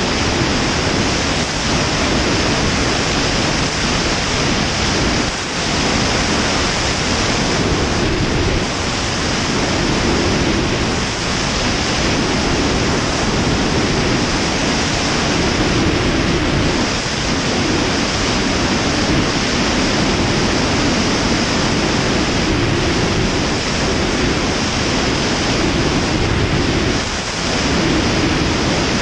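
Steady rush of airflow buffeting a wing-mounted camera on an Ikarus C42 ultralight in flight: loud, even wind noise on the microphone, with the engine and propeller lost in it.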